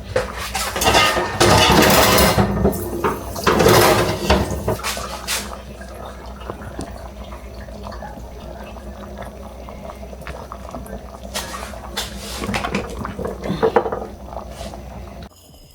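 A kitchen tap runs for about five seconds as scallion, thyme and pepper are rinsed. After that come quieter clinks and knocks of pots and utensils being handled.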